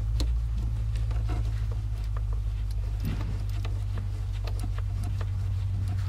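A steady low hum runs under faint, irregular metal clicks as a 5 mm hex socket is turned by hand, threading a bolt into a battery cable adaptor.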